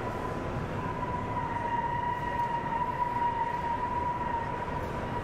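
A steady, unwavering tone held for about five seconds, then cutting off, over a constant background din.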